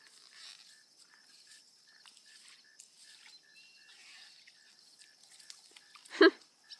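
Faint insect chirping, a short chirp about three times a second over a thin high hiss, with one brief louder sound about six seconds in.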